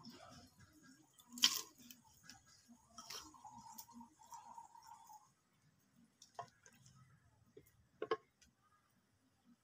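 A few sharp knocks of a wooden spoon and a clay bowl against a clay cooking pot as ingredients are tipped in and stirred. The loudest knock comes about one and a half seconds in, and another sharp one near eight seconds.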